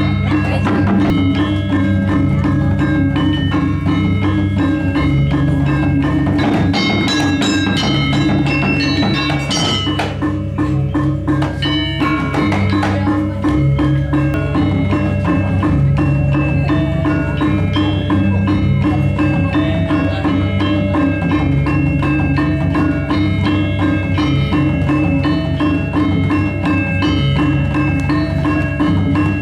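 Balinese gamelan ensemble playing: interlocking metallophone notes ring over a deep sustained gong-like tone. The playing grows denser, with sharp clashing strikes, about seven to ten seconds in.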